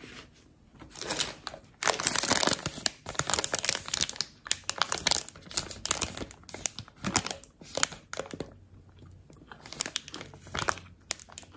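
A foil-lined plastic snack bag crinkling as it is held and turned in the hands, with a short pause about eight and a half seconds in.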